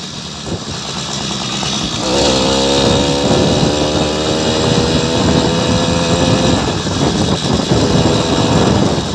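Motorized bicycle's small engine pulling away: its note climbs about two seconds in, then holds steady as it rides, with a few knocks near the end.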